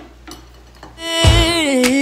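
Background pop song with Christmas lyrics coming in about a second in: a singer holds a long note over a strong bass line, after a quiet first second.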